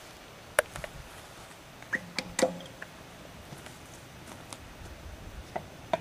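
Footsteps on gravel and a few light knocks, with a quick cluster of them about two seconds in.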